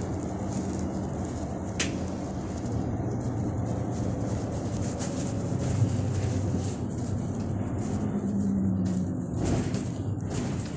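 A double-decker bus engine running and road noise heard from the upper deck while it drives, a steady low drone with interior rattles. There is one sharp click about two seconds in.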